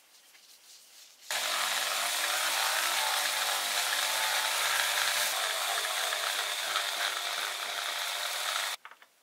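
A power tool running against a workpiece: a steady, hissing noise that starts abruptly about a second in and cuts off near the end.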